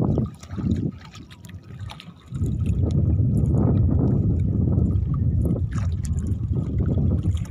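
Wind rumbling on the microphone and water lapping around a small fishing boat. The rumble drops away for about two seconds near the start, then comes back.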